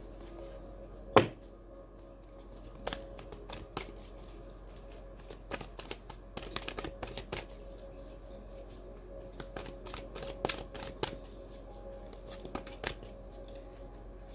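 Tarot cards being shuffled and handled by hand: a run of soft, irregular clicks and riffles, with one sharper snap about a second in.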